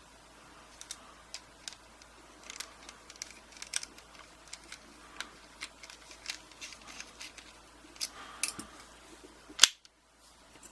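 Light, irregular metallic clicks and taps of a rekeyed pin-tumbler padlock core being fitted back into its padlock body by hand, with a sharper click near the end.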